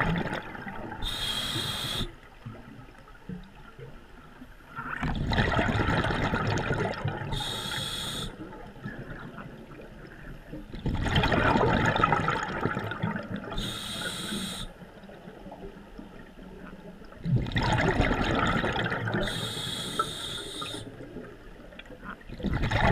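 Scuba diver breathing through a regulator. A short high hiss on each inhalation alternates with a longer rush of exhaled bubbles, about every six seconds.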